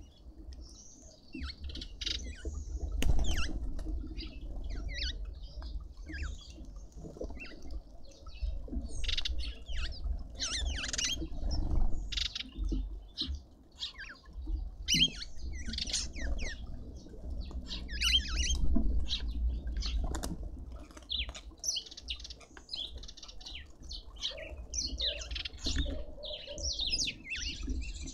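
Many small birds at a garden seed feeder chirping and twittering in quick overlapping calls, with wing flaps from birds coming and going.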